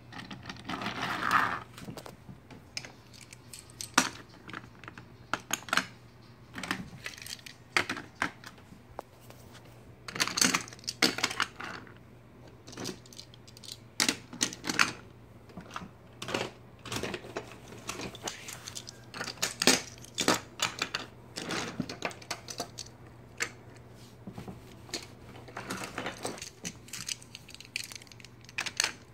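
Toy trains, trucks and track pieces being handled and knocked against each other on a train table: irregular clicks and clatter of small hard plastic and metal pieces, some sharp knocks standing out, over a faint low hum.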